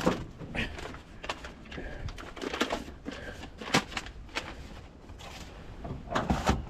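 Irregular clicks and knocks from hand work on metal fifth-wheel hitch parts and tools, a dozen or more scattered strokes with no steady machine sound.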